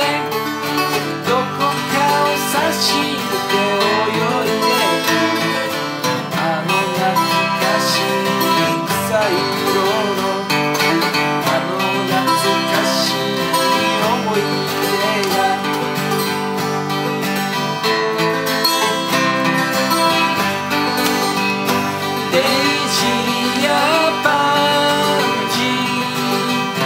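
A Larrivée 12-string and a Martin Hawaiian X six-string acoustic guitar playing together, strummed and picked, with a man singing along.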